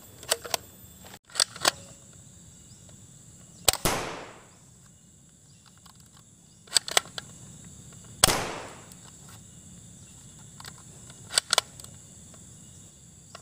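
Toy dart blaster pistol being primed and fired: several sets of short sharp clicks, and two louder sharp shots a few seconds apart, each with a short fading tail.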